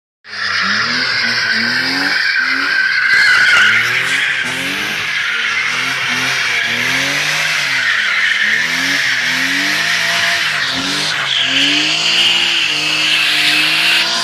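BMW E30 drifting: the engine revs rise and fall over and over while the rear tyres squeal and skid on asphalt. Near the end the revs hold steady with the tyres still squealing.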